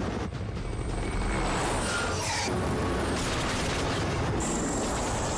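Action-film sound mix of military helicopters in flight under attack: a dense low rumble of rotors and engines, with a sweeping whoosh about two seconds in and booming effects as flares are fired.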